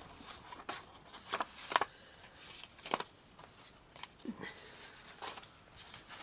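Sheets of card and paper being handled and shuffled, a series of irregular light rustles and taps.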